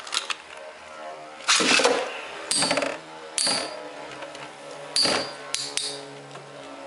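Two Beyblade metal tops spinning in a plastic stadium with a steady whir, clashing together several times with sharp metallic clacks, some ringing briefly.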